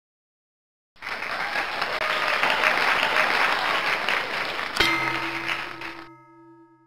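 Audience applause, starting about a second in and cutting off suddenly about six seconds in. Near five seconds a single musical chord strikes and rings on, fading out.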